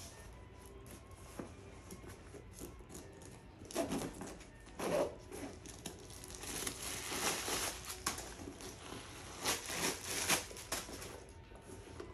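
Paper crinkling and rustling in bursts from about four seconds in, as a small leather handbag is unpacked by hand.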